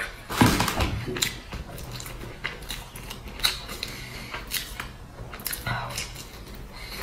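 Close-miked eating sounds: chewing and biting into crisp pan-fried flatbread, with short crackles and clicks throughout as the bread is torn and dipped, and a spoon knocks in a glass sauce bowl. A loud mouth sound comes about half a second in.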